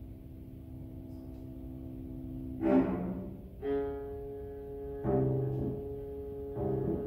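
A string quartet of two violins, viola and cello sustains a low chord, then plays four sharp accented chords, the first one the loudest, about two and a half seconds in.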